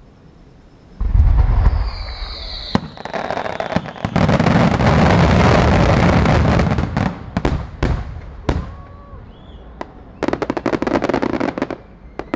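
Starmine fireworks barrage: a deep boom about a second in and a falling whistle, then a dense stretch of overlapping bursts. Rapid crackling follows, with another volley of sharp crackles near the end.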